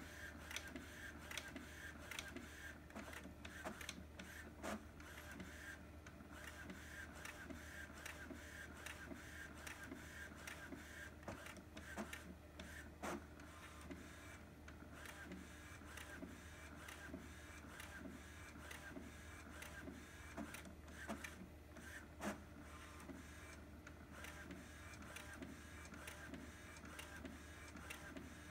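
Epson XP-8500 inkjet photo printer printing a print-head alignment pattern, with a faint run of small ticks and clicks.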